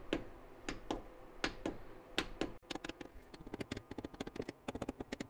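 Soft-faced mallet tapping a new timing gear onto the crankshaft of a Chevy small-block 350 V8, driving it on lightly and evenly until it seats. Sharp taps come about two a second, then after about two and a half seconds they turn into quicker, lighter taps.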